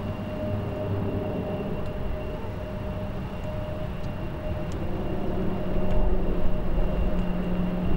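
Boeing 767-300ER's twin turbofan jet engines on landing approach: a steady engine hum with held whining tones, growing louder over the last few seconds as the airliner comes closer.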